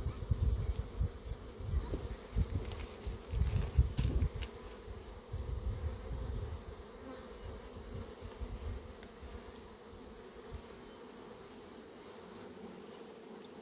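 Honeybees buzzing over an open hive with its frames exposed: a steady hum. Irregular low rumbling and a few clicks sound in the first half, fading after about six seconds.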